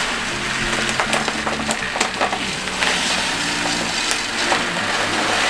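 Granular aquarium soil being poured into a glass tank: a steady rustling hiss with scattered clicks of grains, over background music with a low melody.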